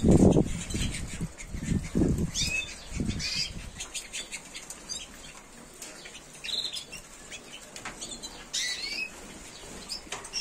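Small cage birds, canaries among them, fluttering their wings in the cages in a few loud bursts over the first three seconds or so, with short high chirps scattered throughout.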